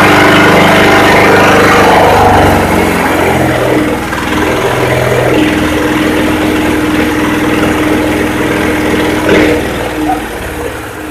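Single-cylinder horizontal diesel engine running steadily. It drops to a lower, quieter running about three seconds in, then falls off further near the end.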